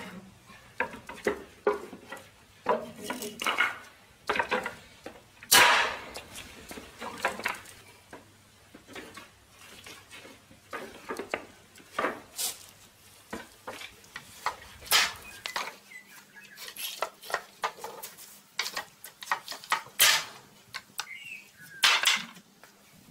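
Irregular knocks and clatters of wooden pallet boards being worked loose and taken apart by hand, sharp strikes of varying loudness, some louder ones standing out among lighter taps.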